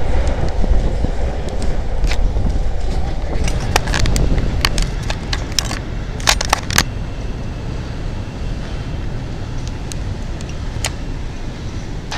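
Chicago 'L' rapid-transit trains running on the rails. A loud, low rumble at first, with a run of sharp clicks in the middle. The rumble fades to a quieter, steady rumble of a train on elevated track.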